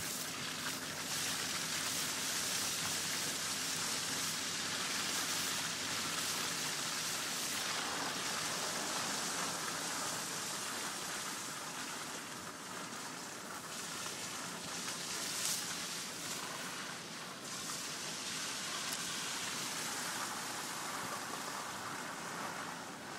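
Car driving slowly along a wet, slushy street: a steady hiss of tyres and road noise.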